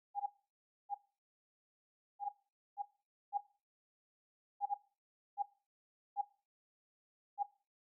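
Apple TV (tvOS) interface navigation clicks: short, soft, pitched ticks each time the on-screen selection moves from one item to the next, about a dozen at uneven intervals, a few in quick pairs.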